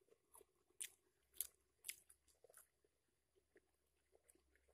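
Faint handling noise: about five sharp crackles in the first three seconds, then a few quieter ticks, as hands move among bait packets in grass.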